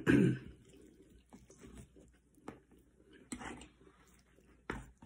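Close-up eating sounds: mouth noises and fingers picking at food. There are soft clicks throughout and a sharper click near the end as a fork works through a plate of greens.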